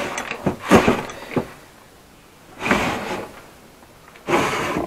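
Old wooden desk drawers being pulled open, rummaged through and pushed shut: a few sharp knocks and rattles in the first second and a half, then two longer sliding sounds, one about halfway through and one near the end.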